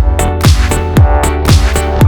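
Electronic dance music with a kick drum on every beat, about two beats a second, over a steady bass and synth chords.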